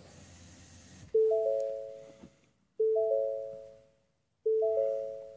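A car's warning chime sounding three times, about 1.7 seconds apart. Each is a bell-like three-note ding that fades away. It is preceded by about a second of faint rustling.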